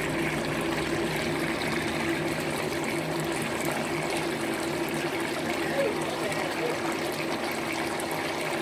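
Sauce simmering in a pan of chicken wings, bubbling and sizzling steadily, with a steady low hum underneath.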